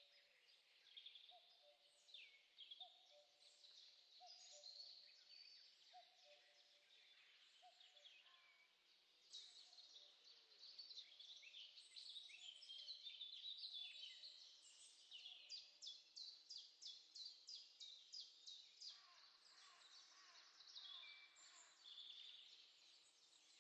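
Faint chorus of songbirds: many overlapping chirps and trills, with a fast run of repeated notes in the middle. A lower two-note call repeats steadily under them for the first several seconds.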